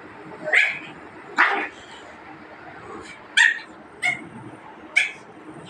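Pugs barking in a scuffle: five short, sharp barks at irregular intervals, a second or two apart.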